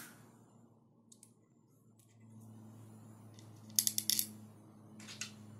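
Small metal parts of a Creality Ender 3's X-axis motor and extruder bracket clicking and clinking in the hands during assembly, with a quick cluster of clicks a little under four seconds in and a few more near the end. A low steady hum comes in about two seconds in.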